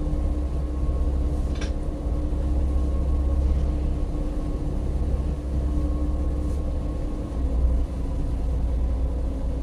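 Marine engine running with a steady low drone and a constant hum above it. A light click sounds about one and a half seconds in.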